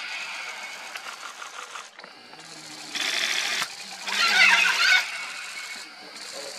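Red-and-green macaws squawking harshly, with the loudest burst of screeching calls about four seconds in. A faint, fast rattle comes near the start, and a short rush of noise just before the loud call.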